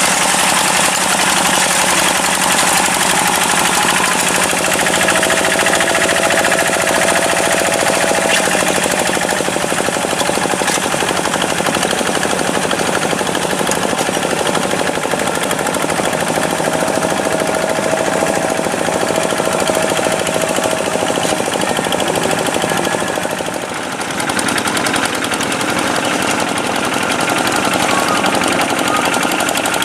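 A Kubota farm tractor's diesel engine running steadily under load, with a fast, hard chattering beat. The beat dips briefly about three-quarters of the way through.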